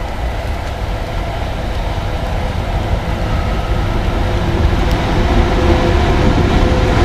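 VL80S twin-section electric locomotive approaching at the head of a freight train, its steady hum over a deep rumble growing gradually louder as it nears.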